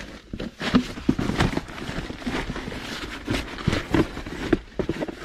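Foam sleeping mat being handled and unrolled across a tent's plastic tarp floor: irregular rustling and crinkling of plastic and foam throughout.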